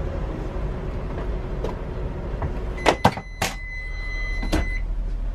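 Microwave oven in a motorhome: a steady low hum, then, about three seconds in, a few sharp clicks and a high electronic beep lasting about two seconds.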